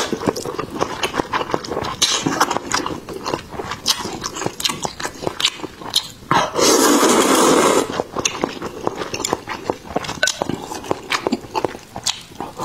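Close-miked person eating snail noodles (luosifen): wet chewing and mouth clicks, broken about six seconds in by one long, loud slurp of noodles, then more chewing.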